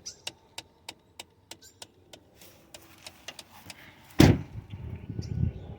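Faulty HVAC blend door actuator in a 2017 Ford Expedition ticking steadily behind the dash, about three ticks a second, set off by a door being open. A loud thump about four seconds in, followed by low rumbling.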